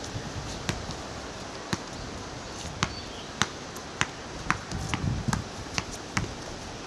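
Crow pecking at a cup noodle container with its beak: sharp, irregular taps, about nine over several seconds.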